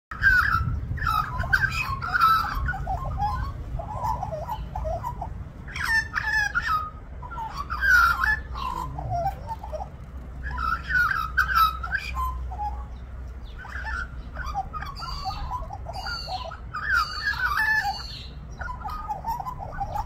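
Australian magpie warbling: a string of short, pitch-bending song phrases with brief pauses between them, over a steady low rumble.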